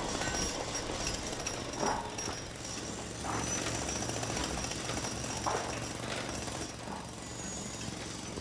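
A jackhammer hammering steadily into rock and earth, a continuous rapid rattle, with a few louder knocks about two, three and five and a half seconds in.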